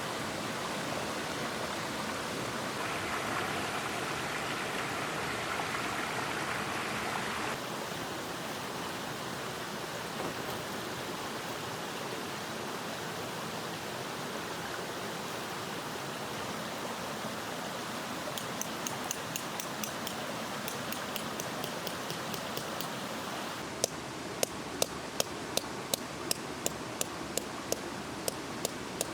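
Mountain stream running steadily. Late on, a run of sharp, evenly spaced clicks, about two or three a second, over the water.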